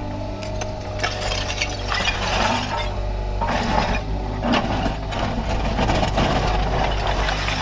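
Kubota KX61-3 mini excavator's diesel engine running steadily, with irregular knocks, cracks and scraping crackles of the machine at work.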